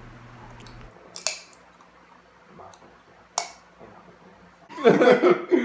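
Two sharp cracks of crab shell being broken apart by hand, with fainter clicks of shell handling between. A short burst of voice comes near the end.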